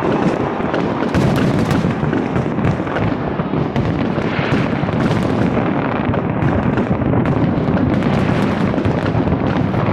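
A dense, unbroken barrage of fireworks: many bangs overlapping into a continuous rumble, with sharper cracks standing out every fraction of a second.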